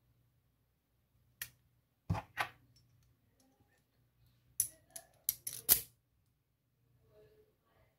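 Small metal clicks and taps of a lock cylinder and tools being handled as a follower is fitted to gut a Yale Superior dimple lock. There is a single click, then a pair, then a quick cluster of five or so clicks a little past halfway.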